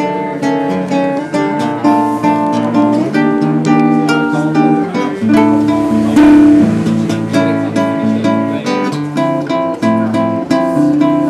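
Classical guitar played solo, fingerpicked: a run of plucked notes and chords with no voice, and a louder strummed chord about six seconds in.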